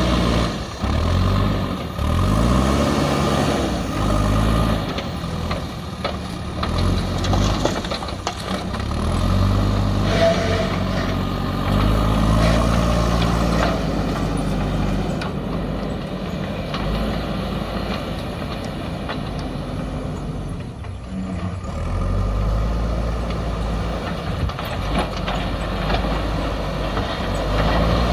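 JCB backhoe loader's diesel engine running, revving up and down several times.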